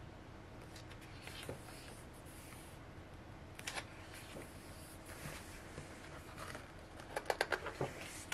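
Paper pages of a printed booklet handled and turned, with faint rustles and light taps and a quick run of small clicks near the end.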